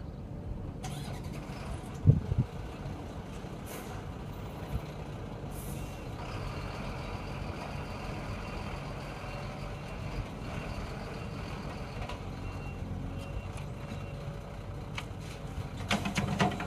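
Diesel engines of a backhoe loader and a Mercedes-Benz dump truck running steadily at a worksite. There is a loud thump about two seconds in and a cluster of thumps near the end as the loader's bucket works earth into the truck's steel tipper bed.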